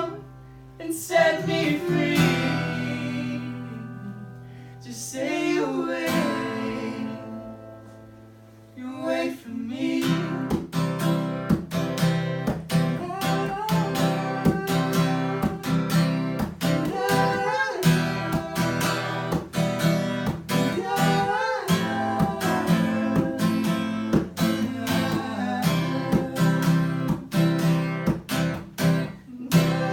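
Acoustic guitar strummed: a couple of chords struck and left to ring out in the first few seconds, then steady rhythmic strumming from about nine seconds in.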